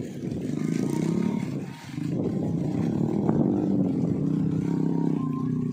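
Small motorcycle engine of a homemade trail bike running as it rides along a dirt track. The engine note dips briefly about two seconds in, then picks up again.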